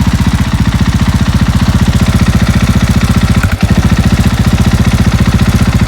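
KTM 500 XCF-W single-cylinder four-stroke engine idling steadily through an FMF Q4 Hex muffler, a quiet-type silencer, with an even rapid exhaust beat. There is one brief dip in the beat about three and a half seconds in.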